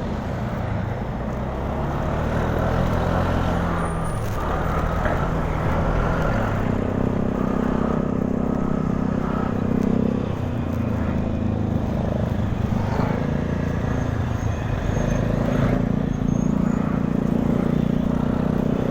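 Motor scooter and nearby traffic engines running steadily on the road, one engine's note dropping about ten seconds in.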